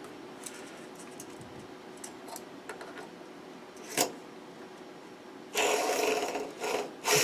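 Light clicks and a metal knock as wheel-hub bearing parts are handled, then, about five and a half seconds in, an ungreased ball bearing from a Ford Explorer front wheel hub spun by hand, giving a rough, steady whirring. It drops out briefly near the end and starts again.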